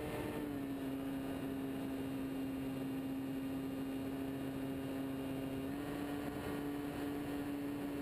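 Motor and propeller of a radio-controlled scale de Havilland Tiger Moth model droning steadily in flight, heard from on board the model over a rush of air. The pitch drops slightly about half a second in and rises again near the end as the throttle is eased back and reopened.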